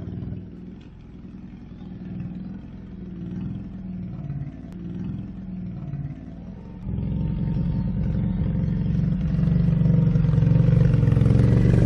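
ATV engine running, its pitch rising and falling with light revs, then much louder and steadier from about seven seconds in.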